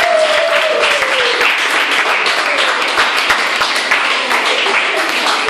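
Audience applauding, a dense patter of many hands clapping, with a voice calling out over it in the first second and a half.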